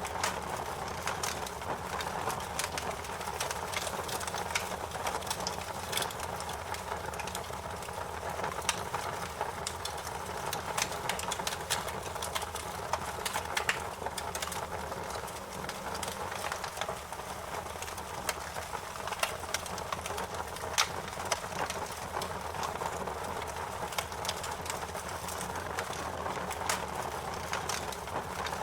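Wood fire crackling in a fireplace: a steady hiss with many sharp, irregular pops and snaps.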